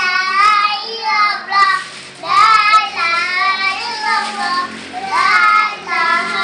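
Young children singing a sholawat, an Islamic devotional song praising the Prophet Muhammad, in high voices, in sung phrases of one to two seconds with short breaks between them.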